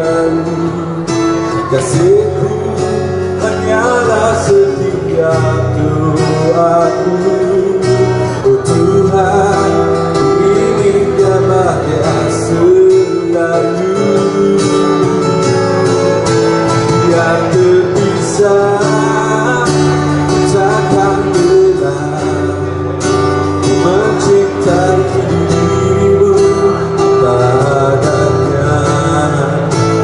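Live acoustic band: a man singing over strummed acoustic guitars and a bass guitar.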